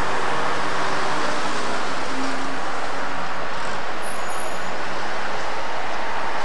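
Steady street traffic noise, an even rush with no pauses.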